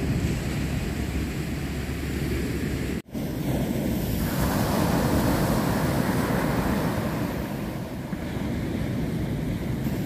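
Ocean surf breaking on a sandy beach, with wind buffeting the microphone. The sound drops out for an instant about three seconds in.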